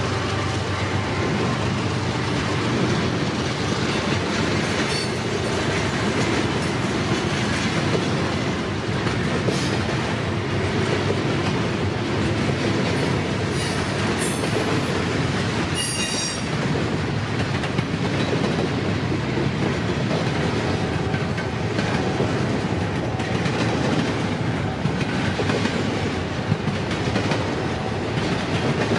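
Double-stack intermodal freight train rolling past on well cars: a steady rumble of steel wheels with clickety-clack over rail joints. Brief high-pitched wheel squeal comes through a few times around the middle.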